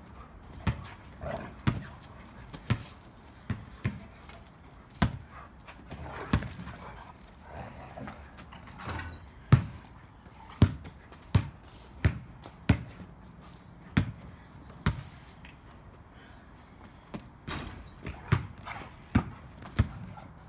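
Dogs playing rough on grass: irregular sharp thumps and scuffles, roughly one a second, some in quick pairs.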